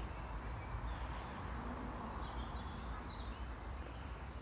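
Faint songbirds chirping, a few high notes about halfway through, over a steady low background rumble.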